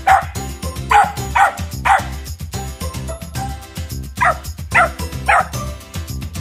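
Jack Russell terrier giving short, sharp play barks, about seven in two runs of three or four, over background music.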